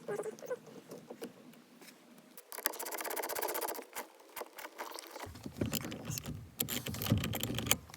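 Ratchet wrench clicking in quick runs while a bolt is run in, with metal tool clatter and knocks. One run of rapid clicks comes a few seconds in, and a longer, heavier stretch of clicking and clattering follows near the end.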